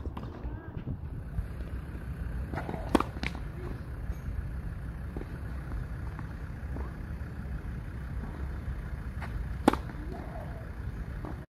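Tennis racket striking the ball on a serve: two sharp cracks about seven seconds apart, the second the loudest, each with a few fainter knocks nearby, over a steady low rumble.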